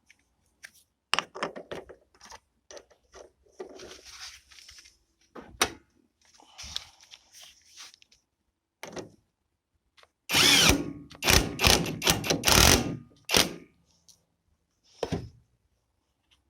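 Tools and metal parts being handled: scattered clicks and knocks, then about three seconds of loud, dense rattling clatter a little after the middle, and one more knock near the end.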